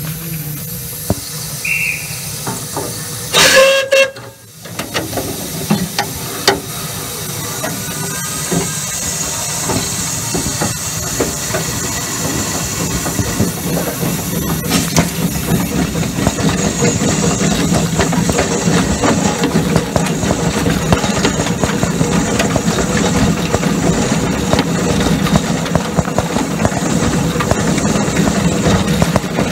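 Miniature steam locomotive heard from the footplate: a short, loud whistle blast about three seconds in, then the steady hiss and working noise of the engine under way, slowly growing louder.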